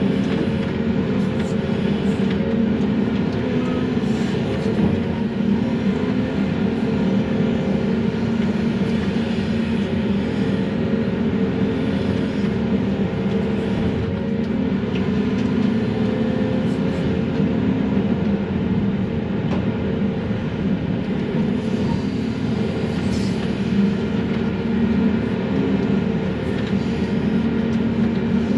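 Excavator's diesel engine running steadily under working load, heard from inside the cab, a constant low drone while the machine swings and works its grapple.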